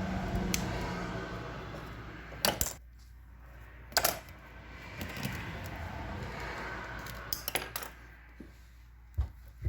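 Metal parts and tools being handled on a workbench around a submersible motor's stator: a few sharp metallic clinks between stretches of scraping and rustling.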